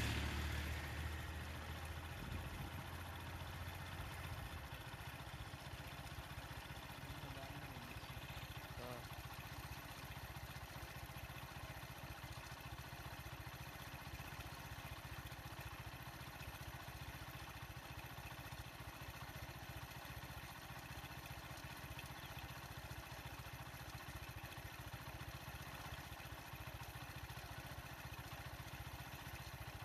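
A vehicle engine idling, a steady low rumble, while a louder engine fades away over the first few seconds as a vehicle drives off.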